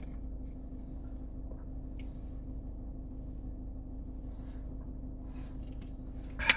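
Steady low hum with a faint constant tone, and a brief louder sound near the end.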